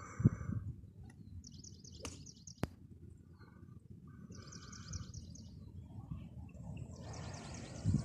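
Small birds chirping in quick runs of rapid high notes, several times over, with a steady low rumble of wind or handling noise on the microphone. Two sharp clicks come a little after two seconds in.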